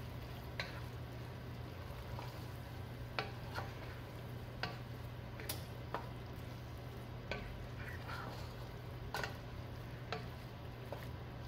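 Wooden spoon stirring okra and bell pepper pieces through thick gravy in a pot, with irregular light knocks of the spoon against the pot about once a second. A low steady hum runs underneath.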